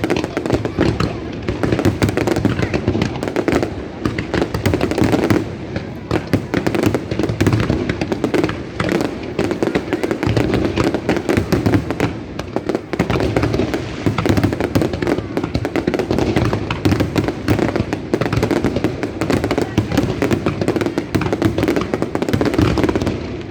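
Fireworks bursting in a dense, continuous barrage of rapid bangs and crackles.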